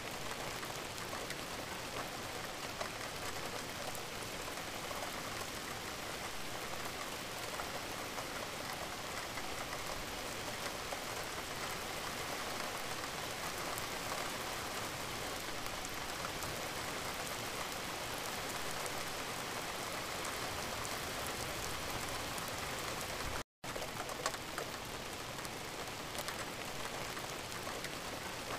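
Added recording of steady rain falling, a continuous even patter. It cuts out to silence for a split second about three-quarters of the way through.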